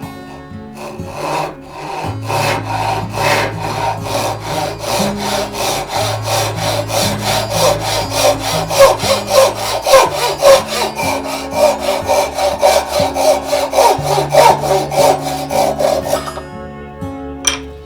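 Hand saw cutting wood with quick, even back-and-forth strokes, starting about a second in and stopping shortly before the end, followed by a single sharp click.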